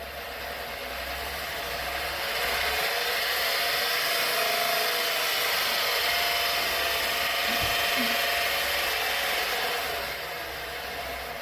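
Electric fan running, a steady rush of moving air with a faint motor hum; the air noise swells over the first couple of seconds, holds, and fades near the end.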